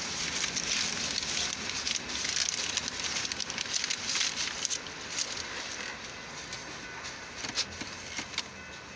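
Tail end of a long Union Pacific freight train rolling over a road crossing, heard from inside a car: a hiss of wheels on rail full of rapid clicks and rattles, which fades about five seconds in as the last car clears, leaving a few scattered clicks.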